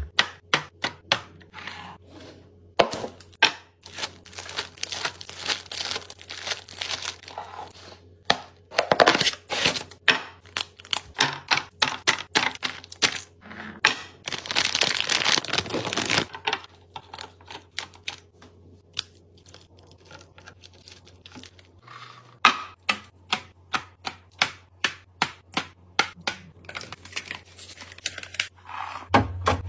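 Quick clicks, taps and knocks of containers and bottles being set down and arranged, with plastic packaging crinkling and tearing in a couple of longer stretches.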